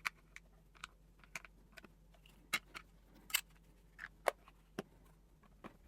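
Scattered light plastic clicks and taps, about a dozen at irregular intervals, as the pieces of a small all-in-one keyboard and screen cleaning kit are fitted back together and packed.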